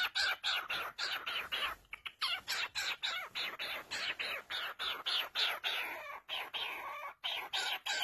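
Cockatiel making a rapid string of short, harsh, raspy sounds, about four a second, while it works its beak at frayed denim threads.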